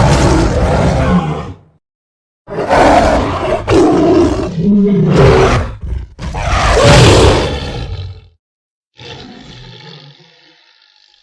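Monster roar sound effects: five separate roars cut apart by dead silence, the first short, three back to back through the middle, and a quieter one near the end that fades away.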